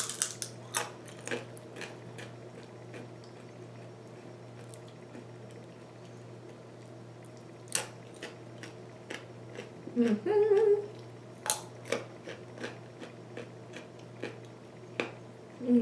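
Close-up chewing and crunching of crisp food, with irregular sharp crunches and clicks throughout. A short hummed 'mm' comes about ten seconds in.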